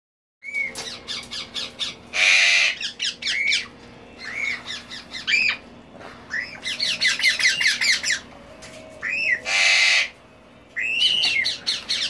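Juvenile Congo African grey parrots calling as they feed: short rising-and-falling whistles, rapid clicking chatter, and two loud, harsh squawks, one about two seconds in and one near ten seconds.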